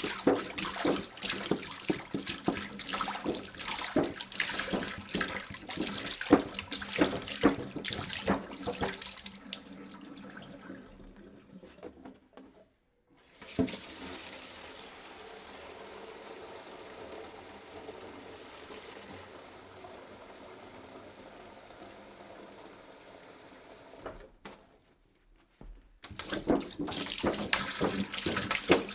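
Water from a tap splashing into a sink. It stops, and after a short gap a steadier, quieter flow of running water follows. Splashing returns near the end.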